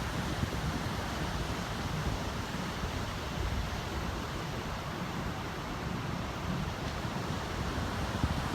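Atlantic surf washing onto the beach, a steady rush of waves mixed with wind rumbling on the microphone.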